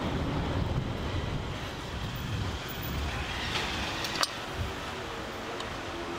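Steady low rumbling background noise, with one sharp knock about four seconds in.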